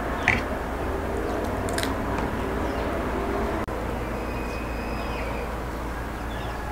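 Steady low outdoor rumble with an even background hiss, a sharp click just after the start, and a few faint high whistles in the second half.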